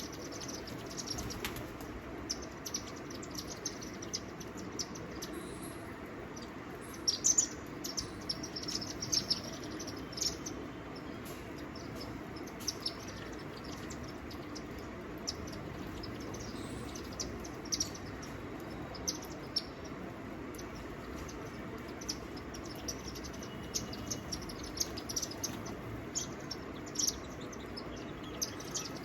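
Small birds chirping: many short, high chirps scattered through, busiest a few seconds in, over a steady low background rumble.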